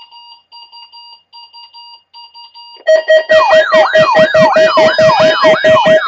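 Several weather radios sounding their alert alarms. At first there is a soft beeping about once a second. About three seconds in, a much louder mix takes over: rapid beeping together with a siren-like warble rising and falling about twice a second.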